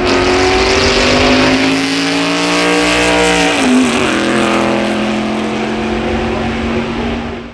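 Ferrari open-top prototype racing car's engine running hard at high revs. Its pitch climbs slowly, drops sharply about three and a half seconds in, then holds steady.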